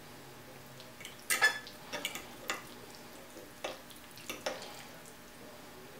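Metal fork clinking and scraping against a plate while twisting up fettuccine, a handful of short clinks with the loudest about a second and a half in.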